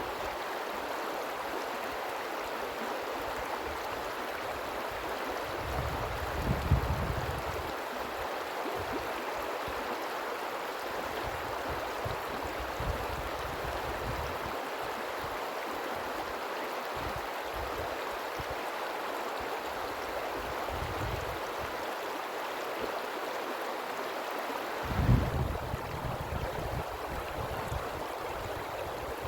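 River water rushing steadily. Two brief low rumbles break in, about six seconds in and again near the end.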